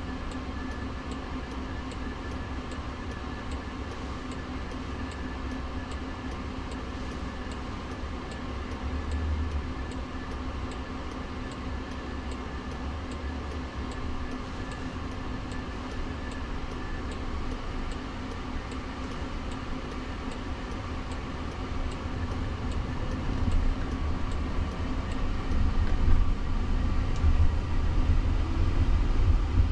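Car turn signal ticking steadily at about one and a half clicks a second inside a Jaguar I-PACE's cabin over a low hum while it waits to turn left. About three-quarters of the way through, a rumble of road and tyre noise grows as the car pulls away.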